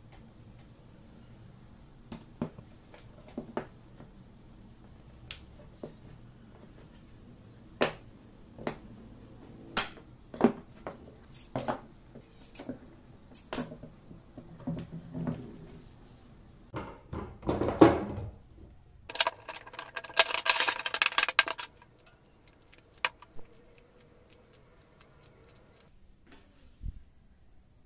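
Wood strips and metal bar clamps clicking and knocking on a wooden workbench as the strips are glued up and clamped. Scattered single knocks build to a denser stretch of clattering about two-thirds of the way through.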